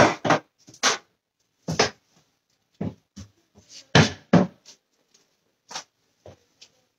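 Irregular knocks and clatter of kitchen items being handled and set down, about a dozen short sharp sounds with gaps between, the loudest pair about four seconds in.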